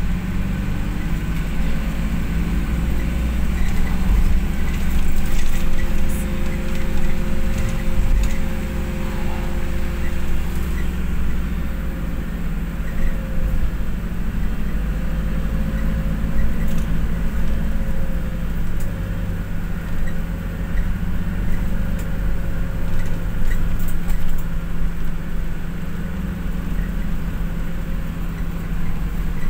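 Inside a moving bus: steady engine drone and road rumble, with a faint engine hum that rises and falls gently as the bus drives on.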